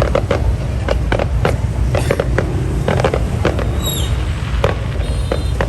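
Fireworks going off: a rapid, irregular run of bangs and pops over a steady low rumble, with a brief falling whistle about four seconds in.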